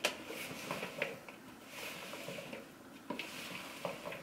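A silicone spatula stirs oily chopped sujuk, mushrooms, peppers and tomatoes in a glass bowl: a soft, wet rustle of the filling being turned, with a few light taps against the glass.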